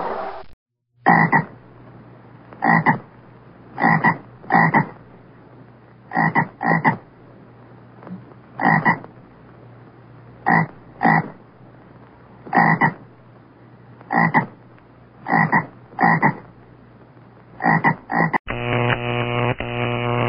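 A frog croaking repeatedly: short separate croaks, single or in quick pairs, roughly one every second or so over a faint low hum. Near the end a different steady buzzing sound takes over.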